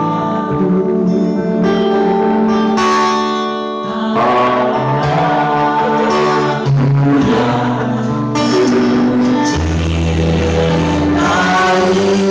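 Background music with held notes in chords that change every few seconds.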